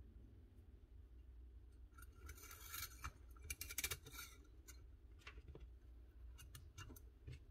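Faint metallic scraping and clinking as coil return springs are slid onto the steel guide rods of a DeWalt cordless nailer's driver assembly, as part of replacing its broken springs. The handling noise is strongest between about two and four seconds in, followed by a few light ticks.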